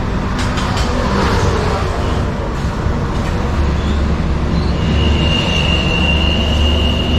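Road traffic: a low, steady vehicle rumble, with a thin, steady high whine joining about five seconds in and holding.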